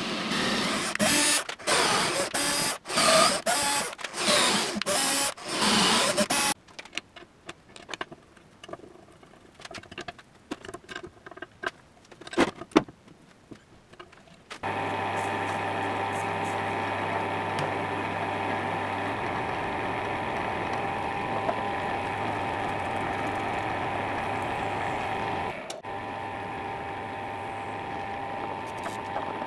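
A cordless drill runs in several short bursts on a steel plate, followed by scattered clicks and knocks of metal parts being handled. About halfway through, a bench drill press starts and runs with a steady hum, drilling holes in a steel plate.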